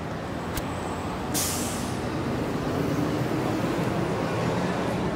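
City street traffic with a sharp air-brake hiss from a bus or truck about a second and a half in, fading within half a second, then the heavy vehicle's engine note slowly rising as it moves off.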